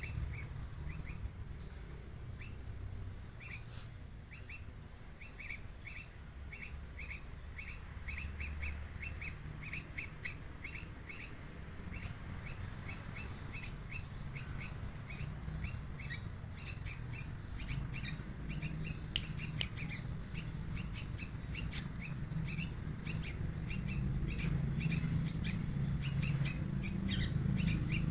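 Young hand-reared yellow-vented bulbul giving many short, quick chirps, repeated in loose runs throughout, over a low steady rumble.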